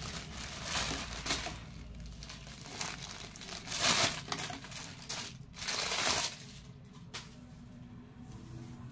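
Rustling of embroidered suit fabric as it is lifted and spread out over a tabletop by hand, in a series of short swishes, the loudest about four and six seconds in.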